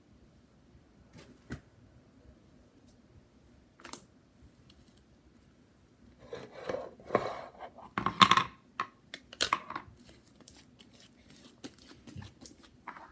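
Slime being kneaded and stretched by hand: a few scattered clicks, then a run of short crackling, squishing noises in the middle.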